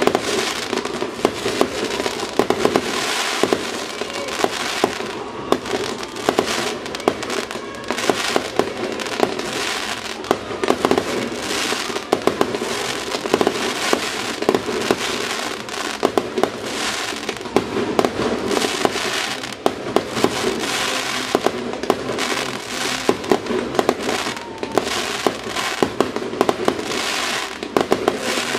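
Fireworks display: a rapid, unbroken string of bangs from aerial firework bursts, several a second, with crackling in between.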